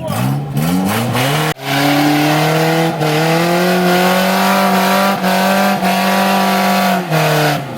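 Off-road 4x4's engine revving hard: a few quick rising blips, then held at high revs for about five seconds before dropping back near the end, with a few sharp knocks along the way.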